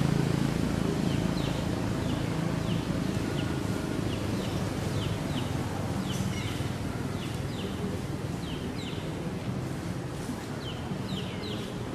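Short, high chirps, each falling in pitch and often coming in pairs, repeating every half second to a second over a steady low hum.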